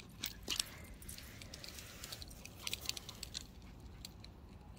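Faint, scattered light clicks and jingling from a small running dog's tags and harness, thinning out near the end.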